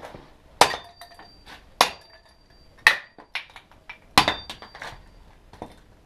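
Hammer smashing a small chrome gear knob on a concrete floor: four hard blows about a second apart, with a few lighter knocks between. A thin metallic ring hangs on after the strongest blows.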